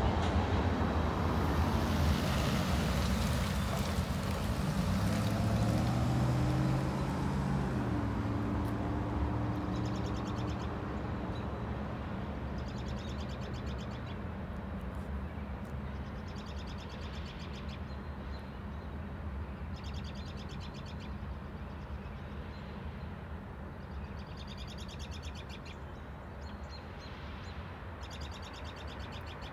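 A freight train of tank cars rolls past with a low rumble that fades away over the first dozen seconds, leaving a steady low hum. A bird chirps in short bursts every few seconds through the second half.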